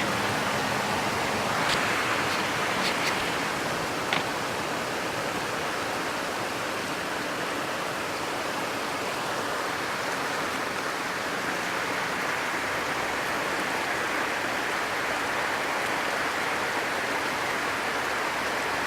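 Heavy rain pouring steadily in a thunderstorm, an even hiss, with a few faint sharp ticks of drops striking something in the first few seconds.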